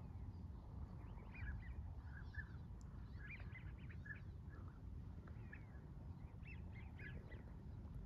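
A flock of wild ducks calling, with many short, high calls scattered and overlapping all through, over a steady low rumble.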